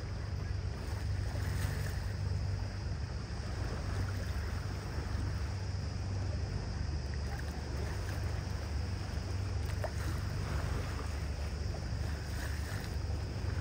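A tour boat under way: a steady low engine drone with water rushing along the hull.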